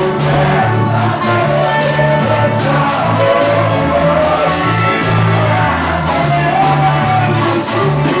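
Music with singing over a steady, pulsing bass line.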